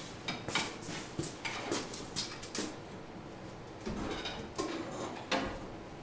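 Irregular metal clanks and knocks from hand work on an engine being hoisted out of a truck, with a dull thump about four seconds in and another just past five.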